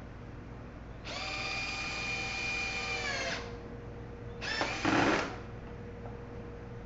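Power drill with a square-drive bit driving 1 1/4 inch pocket-hole screws into hardwood: the motor runs steadily for about two seconds and stops, then a shorter, louder run follows about a second later.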